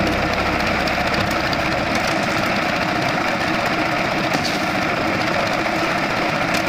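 Construction machinery running steadily: a loud, dense mechanical noise with no pauses, with a low hum underneath that stops about two seconds in.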